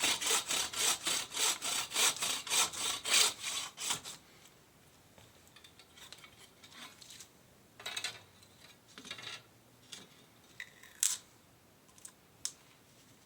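Handmade bucksaw with a Bahco blade cutting wood in quick, even strokes, about four a second, stopping about four seconds in. A few light knocks and rubs follow.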